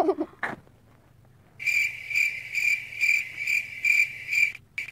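Cricket chirping, a high pulsing chirp about two and a half times a second that starts abruptly about a second and a half in and cuts off sharply near the end: the stock cricket sound effect edited in to mark an awkward silence.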